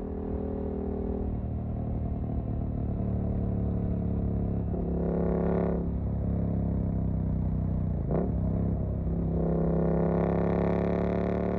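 Suzuki GSX-8S parallel-twin running through a Jeskap EVO aftermarket exhaust while riding, its note shifting with the throttle. A quick sharp rev flick about eight seconds in, then the throttle opens and the engine note climbs steadily near the end.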